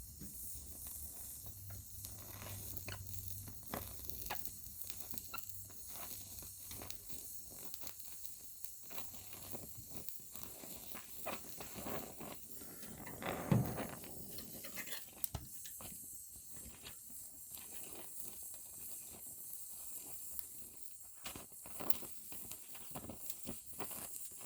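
Stick-welding arc crackling and sizzling in irregular spurts as a small-diameter rod is run on thin sheet metal, with one louder pop about halfway through.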